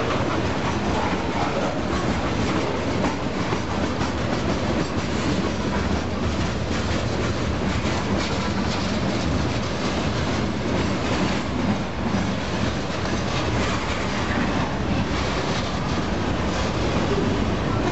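Freight cars of a long freight train rolling past close by: a steady rumble and rattle of steel wheels on the rails, with scattered clacks as the wheels pass over the rail.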